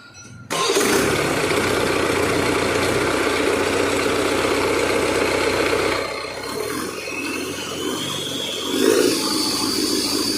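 Diesel engine of a Mahindra backhoe loader, freshly overhauled, running. It comes in suddenly about half a second in, runs steadily, eases off a little past the middle, and a faint rising whine appears near the end.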